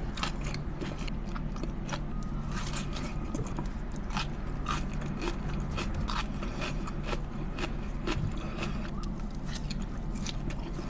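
Close-miked chewing of steak and onions: irregular wet mouth clicks and smacks, several a second, over a steady low hum.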